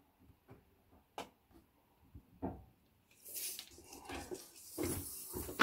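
A few light clicks and knocks of handling the PVC pipe in the vice. About three seconds in comes a dense rasping rattle as a steel tape measure blade is pulled out and laid along the pipe, with a sharp click at the end.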